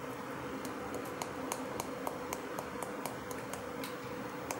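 Light, quick ticks, about three a second, as a small container of asafoetida powder is tapped against a metal spoon to shake the powder out, over a steady faint hum.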